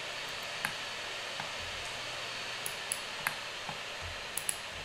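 Computer mouse and keyboard clicks, about eight short, sharp ones at uneven intervals, over a steady background hiss.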